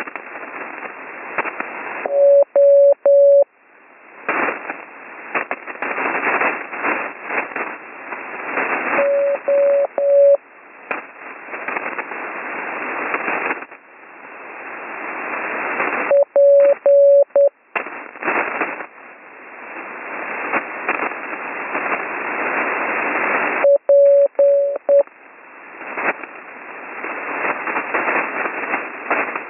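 Slow Morse code (CW) received over HF radio: four short groups of a steady beep about seven seconds apart, heard through loud band hiss and static crashes that swell back up between the groups.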